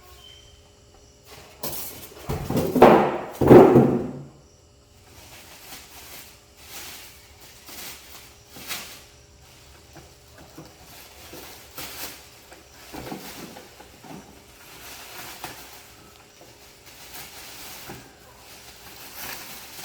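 Unpacking noises: a loud scraping rustle of packing material for about two seconds, starting shortly after the beginning, then scattered small clicks, knocks and rustles as parts are handled.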